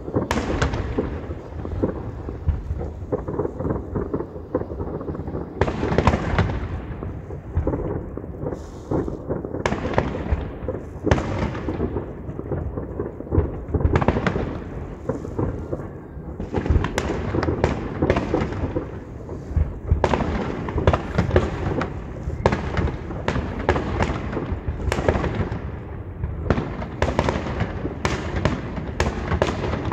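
Heavy barrage of aerial firework shells bursting without pause, a continuous rumble of bangs and crackle with sharper cracks standing out every second or two.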